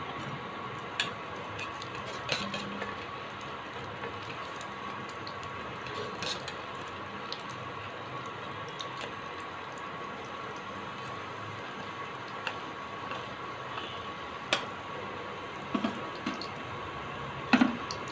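Omelette frying in plenty of hot oil in a kadai, sizzling steadily, with a few sharp clicks scattered through and the loudest pair near the end.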